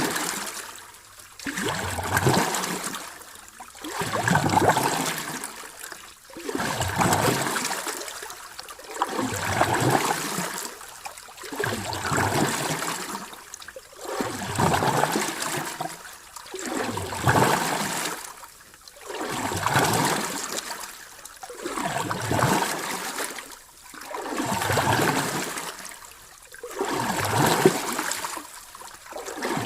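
Sea waves washing in and drawing back in an even rhythm, one surge about every two and a half seconds, each rising and falling away.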